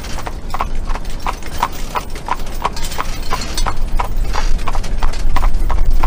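Hooves of a pair of carriage horses clip-clopping on a paved path at a steady walk, about three strikes a second, over a steady low rumble from the rolling carriage.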